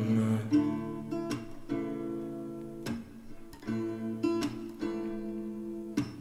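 Background music: acoustic guitar strumming chords in an instrumental gap between sung lines of a song.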